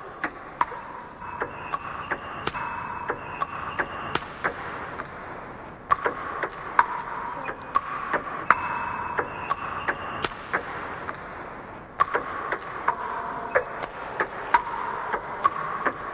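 Table tennis rally: the celluloid ball clicking off rubber bats and the table about twice a second, a chopper's backspin defence against forehand attacks.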